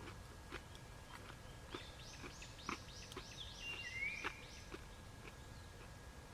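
Campfire crackling with scattered sharp pops, while a bird calls: a quick run of about six short high notes about two seconds in, then a lower swooping call. A faint steady high tone runs underneath.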